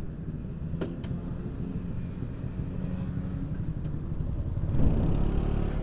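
Yamaha RX-King 135cc two-stroke single-cylinder engine running steadily at low revs, swelling louder briefly near the end.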